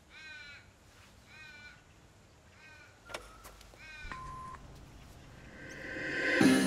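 A crow caws four times, about a second apart. About three seconds in there is a sharp click as the portable stereo is switched on, then a short steady beep, and music swells in near the end.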